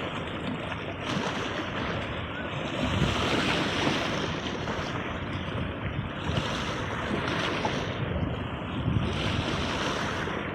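Sea waves breaking and washing ashore: a continuous rush of surf that swells louder about every three seconds.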